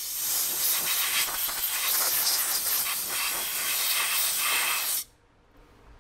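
Compressed-air blow gun with a copper nozzle tube hissing steadily as it blows filings off a freshly filed aluminum butt plate. The hiss cuts off abruptly about five seconds in.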